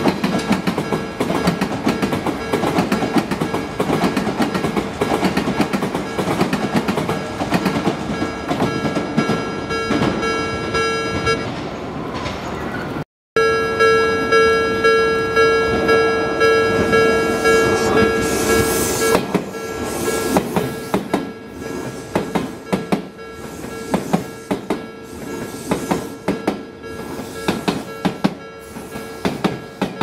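Odakyu Line train running through a level crossing, its wheels clattering over the rail joints, while the crossing's warning bell keeps ringing. The sound drops out for an instant about thirteen seconds in. Toward the end the clatter thins to evenly spaced knocks as the train passes.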